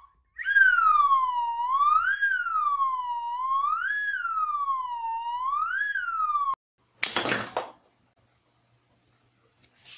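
Electronic siren-like wail, one tone rising and falling about every two seconds, that cuts off suddenly. A short sharp snap follows about a second later.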